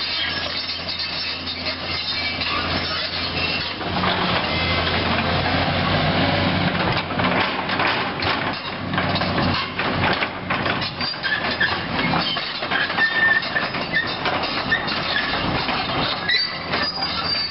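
Link-Belt 3400 Quantum excavator's Isuzu six-cylinder diesel running, with repeated clanks and high metallic squeals from its steel tracks moving. It gets louder about four seconds in.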